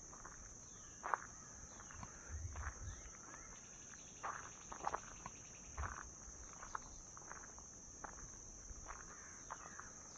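Footsteps and rustling in grass and brush, over a steady high-pitched insect drone.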